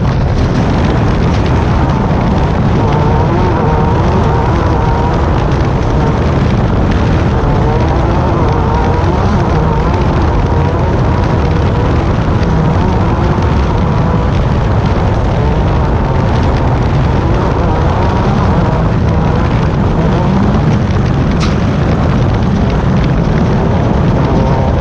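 Class 10 desert race buggy running hard, its engine note wavering up and down under a loud, constant rumble.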